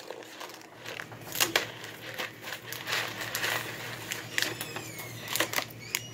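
A cardboard macaroni and cheese box being torn open and handled: crinkling and rustling with a few sharp snaps of the cardboard, then the plastic cheese sauce pouch rustling as it is pulled out near the end.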